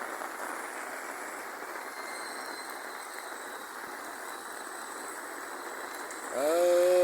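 Steady heavy rain falling, with runoff water running. Near the end a loud drawn-out call rises and then falls in pitch.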